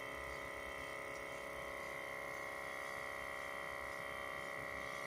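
Air compressor's electric motor running steadily, a constant hum, as it refills after its pressure ran low.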